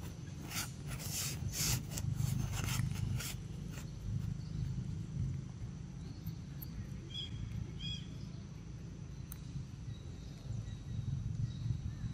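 Young macaque sucking juice through a straw from a carton: a quick run of short slurping and smacking sounds in the first few seconds, then quieter sucking over a steady low rumble.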